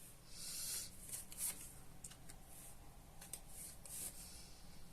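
Tarot cards being slid and laid down: faint papery swishes, the longest in the first second, and a few light taps.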